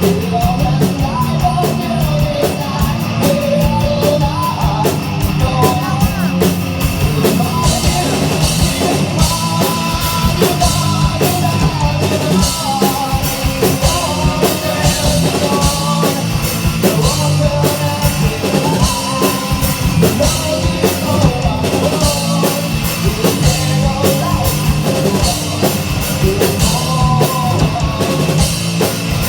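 Loud rock music with a full drum kit, distorted guitars and a sung melody, playing without a break.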